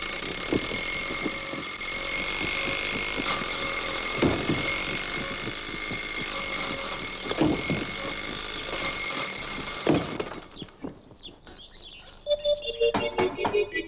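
Old open car driving: a steady rushing engine noise with a few sharp knocks, dropping away about ten seconds in. Music comes in near the end.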